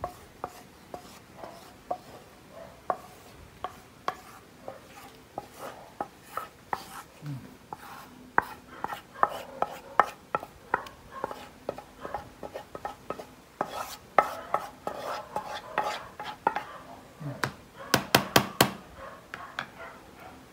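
Wooden spatula scraping and knocking against a metal pot as thick white sauce is scraped out onto macaroni in a baking tray: irregular clicks and knocks, with a quick run of taps near the end.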